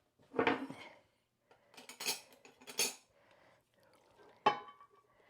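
Kitchen utensils and dishes clattering as pasta is handled: a knock about half a second in, two bright scraping clinks around two and three seconds, and a sharp clink that rings briefly near the end.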